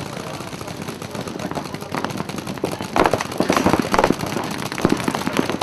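Paintball markers firing rapid strings of shots over a steady noisy background, the shooting growing dense about halfway through.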